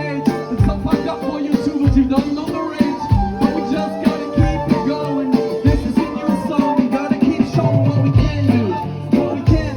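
Live group music: melodic instruments and voices singing over a steady drum beat.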